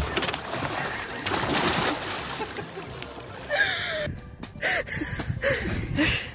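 Water splashing and sloshing as a person drops from a boat's rail toward a paddleboard and into the water. After a cut about four seconds in, the splashing gives way to a few short sounds that slide in pitch.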